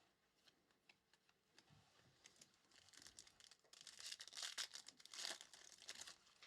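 A trading-card pack's wrapper being torn open and crinkled, with a few faint ticks of handling first; the crinkling grows louder in the second half.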